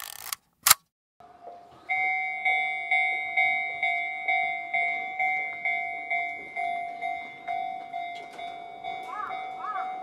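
Japanese railway level-crossing alarm ringing its 'kan kan' warning, an even run of two-tone dings about twice a second that starts about a second and a half in, after a brief click.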